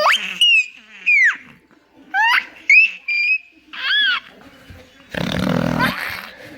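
Baby squealing with delight in a string of short, high-pitched squeals that swoop up and down in pitch. About five seconds in comes a rough, noisy sound lasting about a second.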